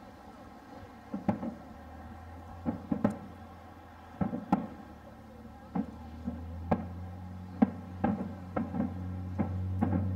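Distant fireworks shells bursting over the harbour: over a dozen dull booms at irregular intervals, some in quick pairs. A low steady hum builds in the background toward the end.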